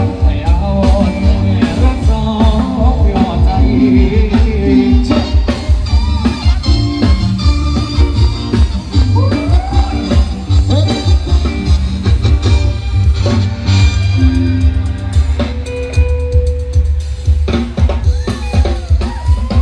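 Loud amplified band music: a drum kit with a heavy bass beat, with singing over it.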